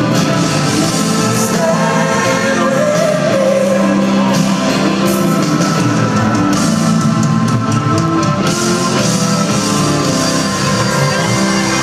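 Live band music with singing, heard from the audience in a large arena with the hall's echo.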